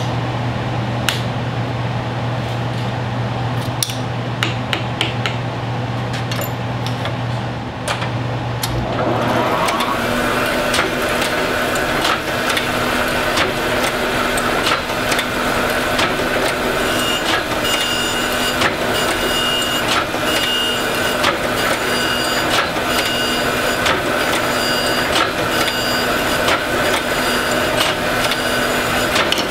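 Steel knife blank clinking as it is handled and set on a surface grinder's chuck, over a steady hum. About nine seconds in, the surface grinder starts and spins up to a steady whine, with regular knocks as the table runs back and forth. Later a grinding tone comes and goes with each pass as the abrasive wheel grinds the blank's second side flat.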